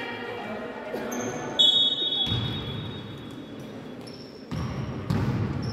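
A referee's whistle blown once about one and a half seconds in, a single high note held for about two seconds, over background voices. Low thuds come in the second half, typical of a ball bouncing on a court floor.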